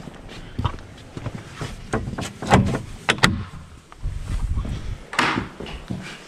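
Iron latch on a wooden plank door being worked and the door opened, with a few sharp metallic clicks and knocks about two to three seconds in.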